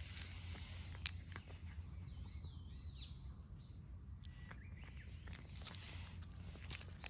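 Stray cat eating cat food, with scattered sharp crunches and clicks, the strongest about a second in and more near the end. A bird calls with a wavering song a couple of seconds in, over a steady low hum of outdoor background noise.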